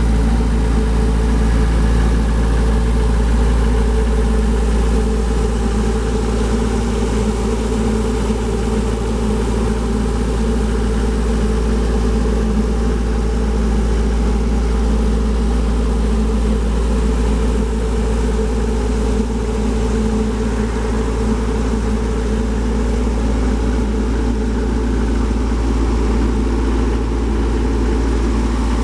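Atlas Copco XAS 136 DD portable screw compressor's Deutz turbo diesel engine running at a steady speed.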